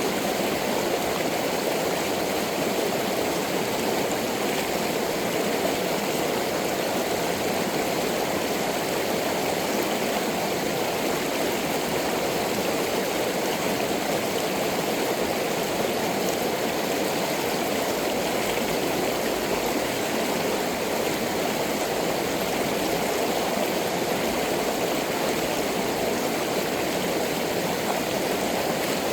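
Mountain stream rushing over rocks: a steady, unbroken sound of flowing water.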